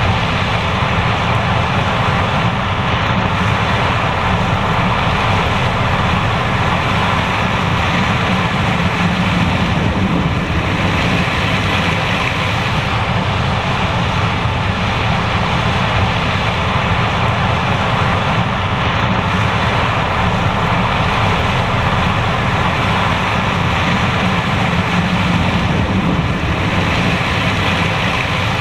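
John Deere S780 combine harvester running steadily while harvesting corn, a loud, even machine drone with no change through the stretch.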